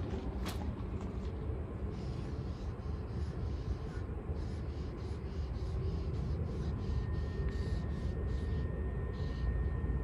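Paint marker nib scratching across the painted steel side of a freight car in quick short strokes while a tag is written, over a steady low rumble.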